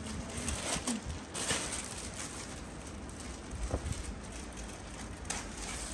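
A few faint, short rustles and knocks of goods being handled, over a low steady background rumble.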